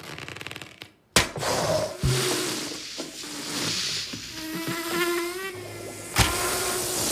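Cartoon sound effects: a sharp crash about a second in and another near the end, with noise between them and a brief warbling, wavering tone in the middle.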